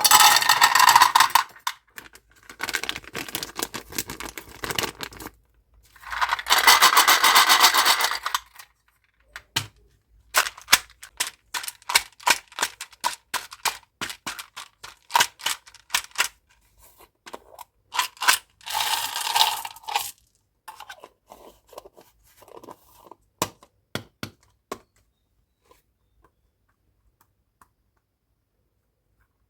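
Plastic candy wrappers crinkling and rustling in three bursts of about two seconds each. Between them come many separate sharp clicks, like small hard-shelled candies dropping one by one onto a hard surface. The clicks thin out and stop several seconds before the end.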